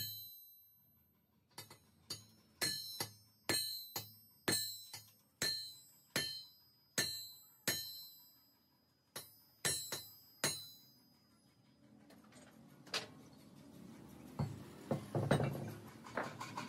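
Steel crankshafts clinking against one another with sharp, ringing metallic strikes, irregularly about every half second to second for the first ten seconds. Near the end come scraping, rumbling and a few knocks as a crankshaft is handled on the concrete floor.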